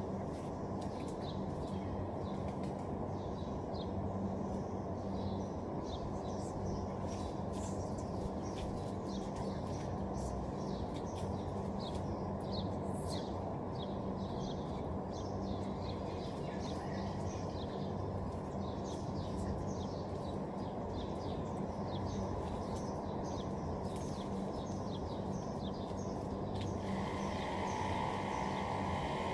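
Small birds chirping in many quick, short notes, over a steady low hum and rumble.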